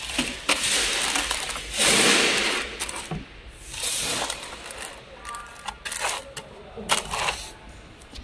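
Small plastic bags of screws being handled in a plastic bin: the bag film crinkles and the screws inside clink together, in several bursts, loudest about four seconds in.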